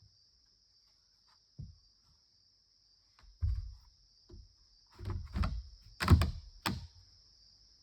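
A series of irregular heavy thuds and knocks, one on its own and then a cluster of six or so, the loudest about six seconds in, over a steady high-pitched hiss.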